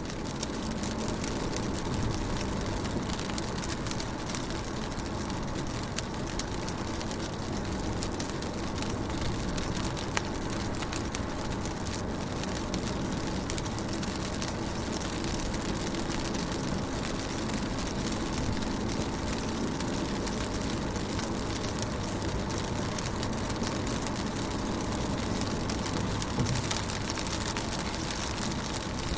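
Rain heard from inside a car: a steady patter of raindrops on the window and body, with scattered sharper drop ticks over a low steady hum.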